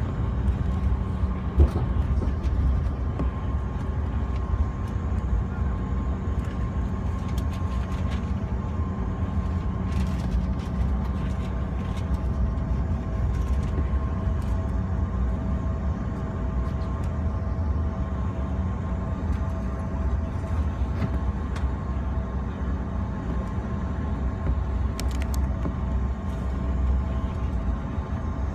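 Cabin noise of a CRJ-700 on the ground: its rear-mounted General Electric CF34 turbofans run steadily at low thrust while the jet taxis, a low rumble with a few steady tones.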